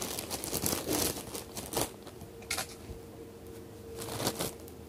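Plastic packaging crinkling and rustling as it is handled, in several short bouts.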